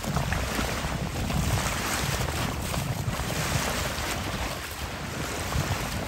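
Wind buffeting the microphone over the wash of small waves in shallow sea water: an uneven low rumble and a hiss that swells and fades.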